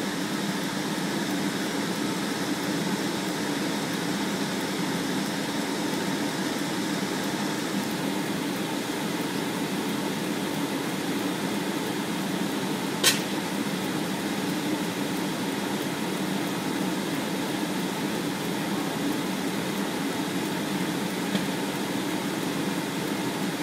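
A steady low mechanical hum, with one sharp pop about thirteen seconds in.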